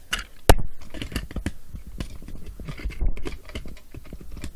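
Hard plastic toy parts of Power Rangers Zords clicking, knocking and scraping as they are handled and pressed onto pegs, with one sharper click about half a second in.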